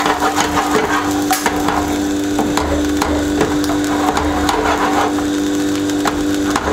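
Boiled octopus tentacles crackling and popping on a hot char-grill, with irregular sharp pops over a steady hum.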